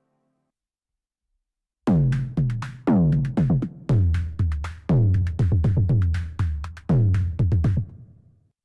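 u-he Hive 2 software synthesizer playing its 'Cinematic Drama Beat' preset: a synthesized drum pattern of deep hits whose pitch drops after each strike. It starts about two seconds in, with a heavy hit about once a second and quicker, lighter hits between.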